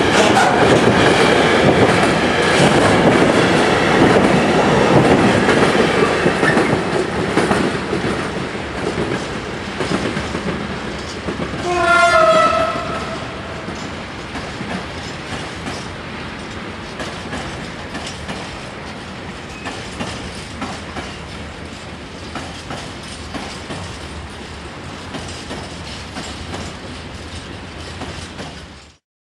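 Freight train passing, its wagons clattering over the rail joints, loud at first and fading as it moves away. A train horn sounds for about a second near the middle. The sound cuts off abruptly just before the end.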